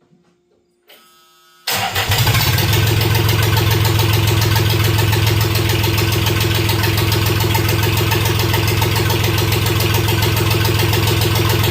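Rebuilt diesel engine of a Mustang skid steer cranked briefly by the starter and firing right up about two seconds in, then running steadily and loudly.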